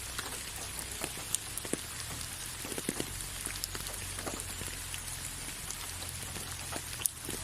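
Steady rainfall, an even hiss with many scattered individual drops tapping at irregular moments.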